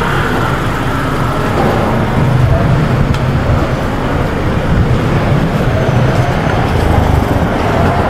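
Steady city street traffic: the ongoing rumble of cars and engines on the road.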